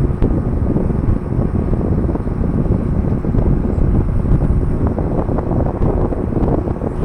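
TKA-W1600 window air conditioner running: a steady, loud low hum and rush of fan air with a faint steady tone in it. The owner finds it far too loud.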